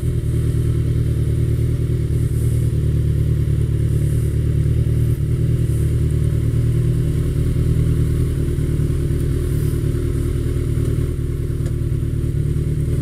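Kawasaki ZX-14R's inline-four engine running steadily at low revs as the motorcycle creeps across a parking lot and comes to a stop.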